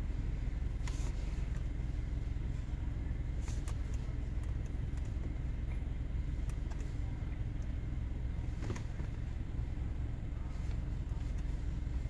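Mercedes-Benz S550's twin-turbo V8 idling with a steady low rumble, on a car being diagnosed for a misfire, with a few faint clicks.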